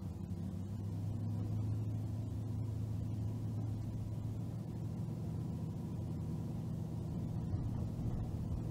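Car driving along a road: a steady low engine and tyre rumble with a constant low hum.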